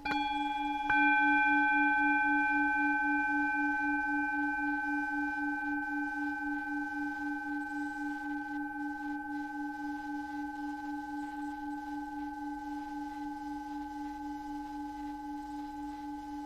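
A bell-like meditation tone struck twice, at the start and again about a second in, its overtones ringing and slowly fading. Underneath is a steady low hum that pulses about three times a second.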